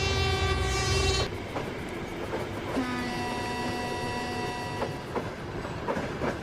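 Train horn ending about a second in over heavy low rumble. A second, lower horn blast sounds for about two seconds, then a few wheel clacks on the rails.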